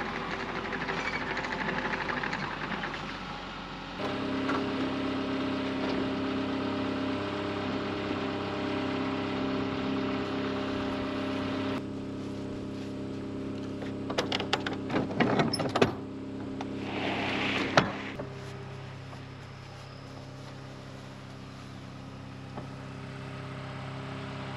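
Compact track loader's diesel engine running steadily, its hum shifting in pitch a few times. About two thirds of the way through come a quick run of metal clanks and rattles from the kiln door's latches, then a short scrape as the door is worked.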